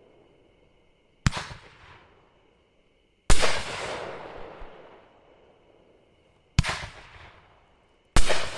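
A 500 g nine-shot consumer firework cake firing: four loud, sharp bangs a few seconds apart, each followed by a rumbling echo that dies away over a second or two. The bangs are the cake's large brocade shells.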